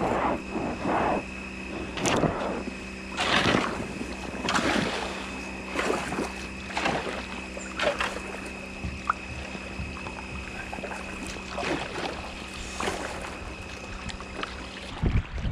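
Kayak paddle strokes dipping and splashing in water, roughly one a second, over a steady held hum.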